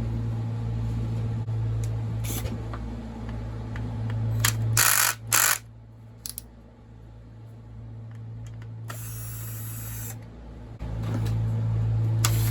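Hand tools and small metal parts clinking and knocking as a chainsaw's covers and screws are taken off, with two sharp knocks about five seconds in and a short rushing scrape about nine seconds in, over a steady low hum.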